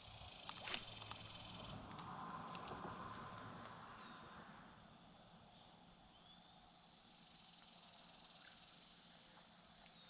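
Faint creekside outdoor ambience: a steady high-pitched whine, a few light clicks about a second in, and a soft hiss for a couple of seconds.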